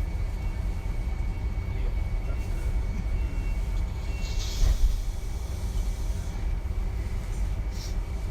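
DB Class 425 electric multiple unit running, heard from inside the passenger car: a steady low rolling rumble with a faint, high, steady whine over it. A brief higher hiss comes about halfway through, and a shorter one near the end.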